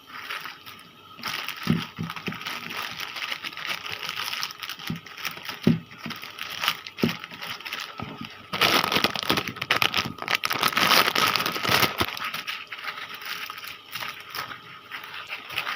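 Plastic packaging crinkling and crackling as it is handled, loudest for a few seconds past the middle, with a few soft knocks.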